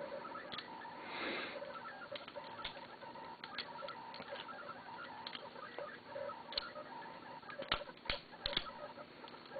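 Handmade steel-handled latchless balisong being flipped: irregular light clicks and ticks of the handles swinging and knocking against the blade's tang pins, with a few sharper clacks close together near the end.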